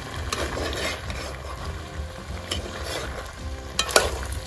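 A spoon stirring brown stew of meat and vegetables in a black pot over a wood fire, the food sizzling as it is turned. A couple of sharp clicks sound near the end.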